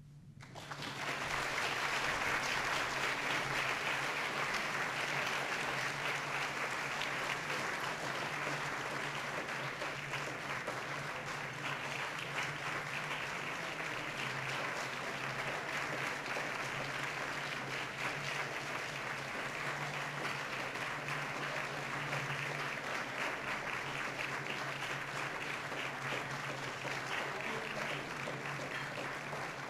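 Audience applauding, rising within about the first second and then holding steady.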